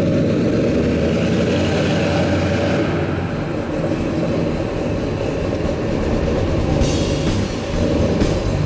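The rebuilt 383 cubic-inch stroker V8 of a 1949 Chevrolet 3800 panel truck running steadily as the truck drives off slowly.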